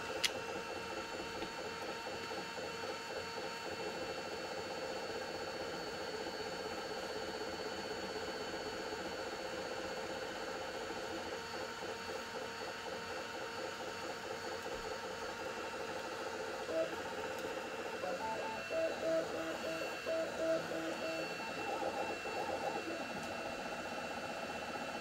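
Two Trees Sapphire Plus CoreXY 3D printer printing at 130 mm/s: its stepper motors sing in fast-changing pitches as the print head moves, over a steady high whine. A sharp click comes just after the start, and in the second half the moves turn into a run of louder, separate stepped tones.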